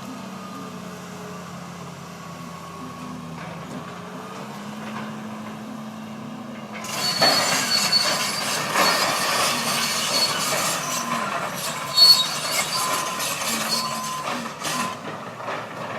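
A motor running steadily at a low hum, then about seven seconds in a much louder grinding, cutting sound with high squeals and sharp cracks, the loudest crack near the end, as power equipment works through the wood of a felled tree.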